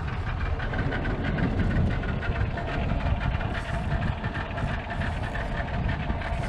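Boat engine running steadily with a low rumble and a steady hum.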